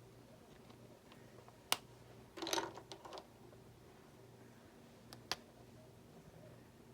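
Small handling sounds of craft supplies at a desk: a sharp click, a brief scratchy rustle about a second later, and a second click near the end, over a steady low electrical hum.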